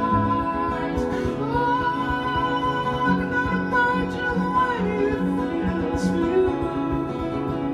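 Two acoustic guitars played together in a steady picked pattern, with a long held wordless sung note over them from about a second and a half in until nearly five seconds.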